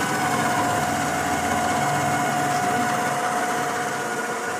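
The Bakers stand mixer's electric motor running at speed 2, a steady whine with a constant hum beneath it.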